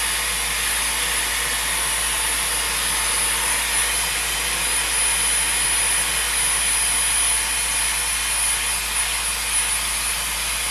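Dyson Airwrap hair styler blowing air through its curling barrel, its fan turned down to the low setting: a steady rush of air with a thin high-pitched motor whine above it.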